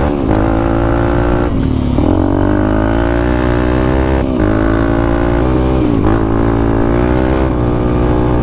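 Suzuki LTZ 400 quad's single-cylinder four-stroke engine running hard on a dirt trail. Its pitch climbs under throttle and drops back sharply several times.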